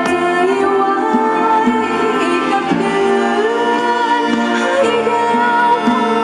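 A luk thung band playing live, with horns, drums and keyboard carrying long held melody notes that step from pitch to pitch, and singing over the band.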